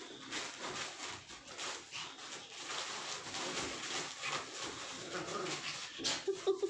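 Two small dogs play-fighting on a bed: scuffling paws and rustling of a plastic bag and bedding, with a few short dog vocal sounds, loudest near the end.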